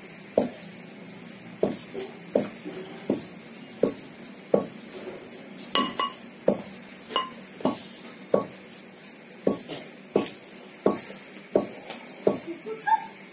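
Metal pestle pounding soaked rice in a tall metal mortar, pounding it into fine flour. The strikes come steadily, about one every three-quarters of a second, some of them with a short metallic clink.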